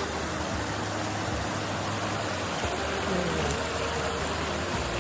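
Steady rushing noise like running water, with faint held and gliding tones of the background song's instrumental beneath.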